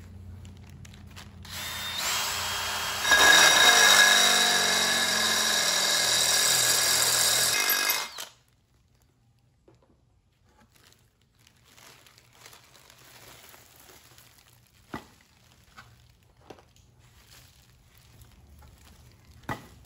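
Drill with a 9/16-inch bit boring through the steel lug holes of a brake rotor to enlarge them for 14 mm lug nuts. It starts softly, then runs loud with a high metal-cutting whine for about five seconds and stops about eight seconds in. A few faint handling clicks follow.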